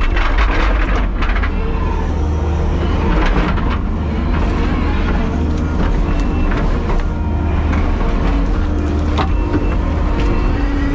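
Kubota skid steer's diesel engine running steadily, heard from inside the operator's cab, with scattered clunks and knocks.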